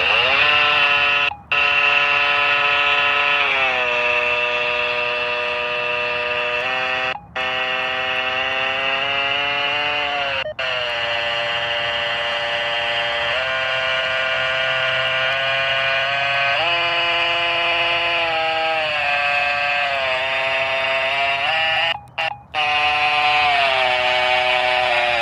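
Music played back through the small built-in speaker of a Victor Reader Trek: long held notes that slide from one pitch to the next, broken by a few short gaps.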